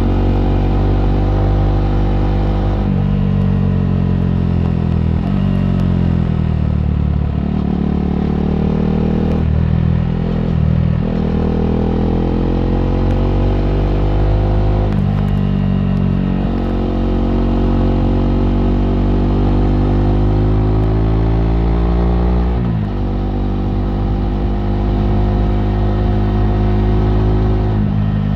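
KTM 390 Duke's single-cylinder engine being ridden hard through corners. The pitch climbs under throttle, then drops sharply about five times as the throttle is rolled off or a gear changes.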